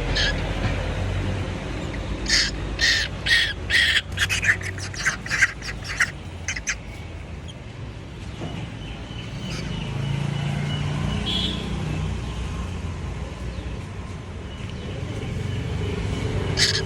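Cuckoo chick calling: a run of short, sharp calls repeated about two a second, then faster, for about four seconds starting two seconds in, then quieter.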